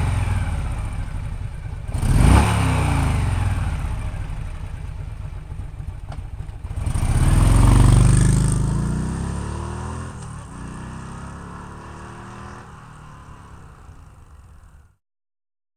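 A motorcycle engine revving and passing by, with a sharp swell about two seconds in and a longer, louder swell around eight seconds in, its pitch falling away after each. It fades and then cuts off abruptly about a second before the end.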